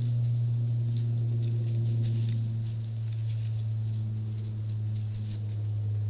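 Steady low hum with a few overtones above it, holding level throughout, with faint light ticks and rustles over it.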